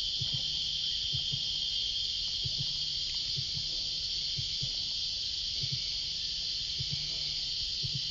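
Cicadas buzzing in a steady, unbroken high hiss that does not change.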